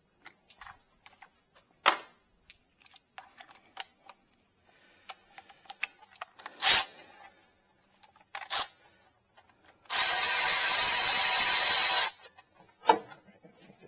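Scattered light clicks and knocks, then a Milwaukee M12 Fuel 3/8-inch cordless ratchet running for about two seconds and spinning a bolt out.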